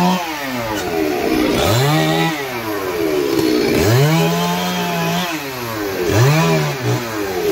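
Chainsaw revved in short bursts, about four times. Each burst climbs quickly in pitch, holds for a second or so, then drops back.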